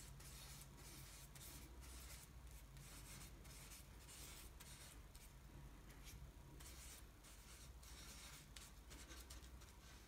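Faint scratching and rubbing of a paintbrush working thick paint on a palette and stroking across the painting board, over a low steady hum.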